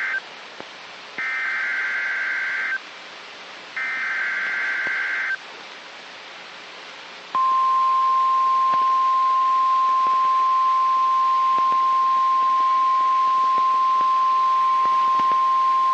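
NOAA Weather Radio Emergency Alert System activation: the warbling digital SAME header tones, sent in bursts of about a second and a half, then after a short pause the long, steady single-pitch warning alarm tone, over radio hiss.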